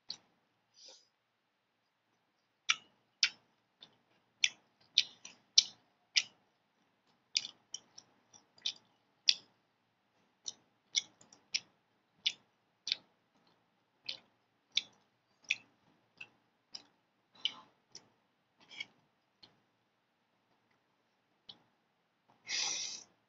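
Close-up mouth sounds of eating noodles: short wet chewing and lip-smacking clicks, about two a second, then a loud slurp of noodles near the end.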